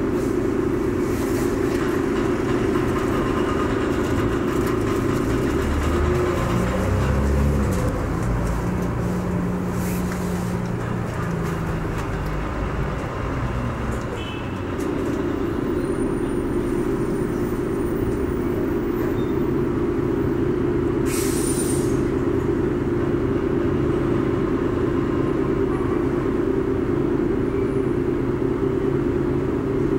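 Volvo Olympian double-decker bus's diesel engine heard from inside on the upper deck: idling steadily, then pulling away for several seconds with the engine note rising and shifting, then settling back to idle. A brief hiss comes about two-thirds of the way through.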